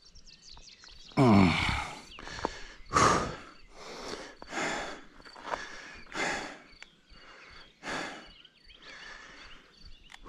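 A mountain biker breathing hard, one heavy breath about every second. About a second in, one breath comes out as a loud voiced sigh.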